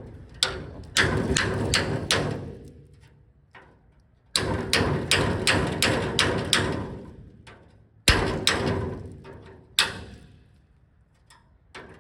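Hammer blows driving a seam splitter between two spot-welded sheet-steel panels of a truck bed, the steel ringing after each strike. The blows come in three runs of several quick hits, two to three a second, with pauses between; the split opens the seam to show where the spot weld is.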